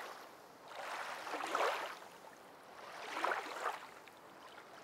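Gentle waves of water washing in and ebbing, swelling twice: once about a second and a half in and again about three seconds in.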